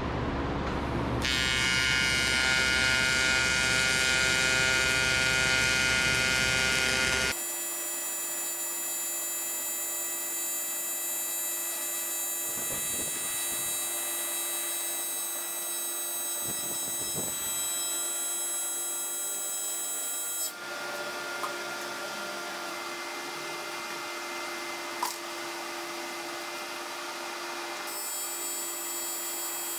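Welding arc running on aluminum sheet, a steady buzzing hum that changes tone abruptly a few times as the welds go on.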